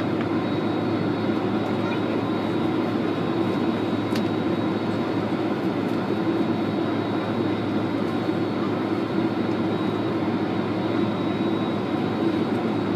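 Steady cabin noise of an airliner on the ground before take-off: engines at low power and the cabin air-conditioning making an even hum, with a thin steady high whine above it.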